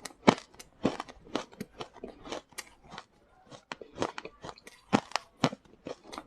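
Frost ice being bitten and chewed close to the microphone: a run of crisp, irregular crunches, with a short lull about three seconds in.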